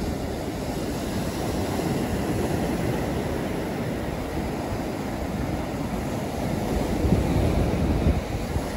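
North Sea surf washing onto a sandy beach, a steady rushing noise, with wind buffeting the microphone and growing louder about seven seconds in.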